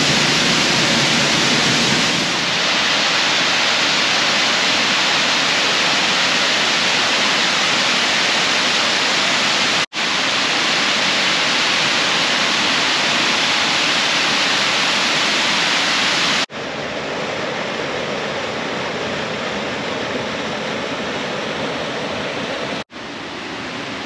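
Loud, steady rush of falling water from waterfalls, first heard from behind the falling curtain of a fall. The sound changes abruptly at about 10, 16 and 23 seconds as the shots change, and the later stretches are quieter.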